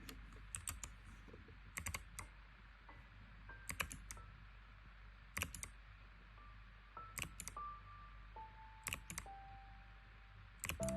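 Typing on a Hexgears Soda68 gasket-mounted mechanical keyboard with Kailh BOX "Soda" switches and PBT keycaps: short bursts of a few keystroke clicks, scattered with pauses between them. Faint held notes sound between the bursts.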